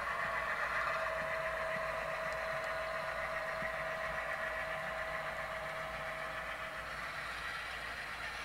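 Sound-equipped model diesel locomotive running, its decoder playing a diesel engine sound through the loco's small speaker, with a steady tone over the engine noise that fades about seven seconds in.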